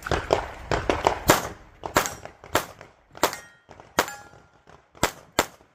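Rapid string of pistol shots during a USPSA Limited stage run, about fifteen in quick clusters with short pauses between them. A brief ringing follows several of the shots.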